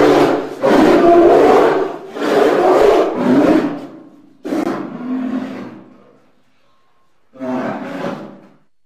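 A large animal roaring, a run of deep, loud roars about a second apart that grow weaker, then after a short pause one last roar near the end.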